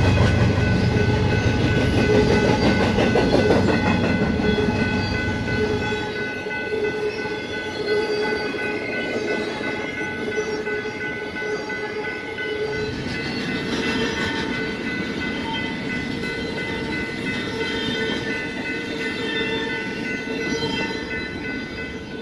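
BNSF intermodal freight train rolling through a grade crossing. The locomotives' low rumble fades over the first six seconds or so, leaving the cars rolling and clattering past. A steady ringing from the active crossing signal's bell sounds throughout.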